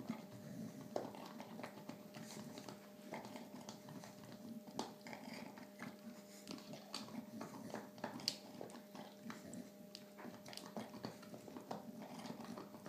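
Dog chewing on his ball: a string of small, irregular clicks and crunches.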